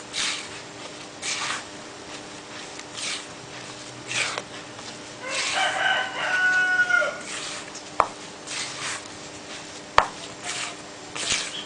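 Bare hands rubbing and squeezing flour into crumbly cookie dough in a bowl, soft rustling swishes every second or so. About halfway through a rooster crows once, for about two seconds, and a couple of sharp clicks come near the end.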